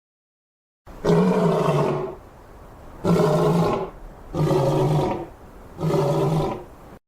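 Lion roaring: four loud, deep calls of about a second each, evenly spaced, cutting off abruptly near the end.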